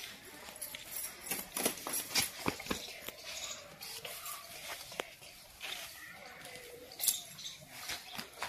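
Tangled thin wire being handled and pulled on a dirt floor, making faint scattered clicks and scrapes.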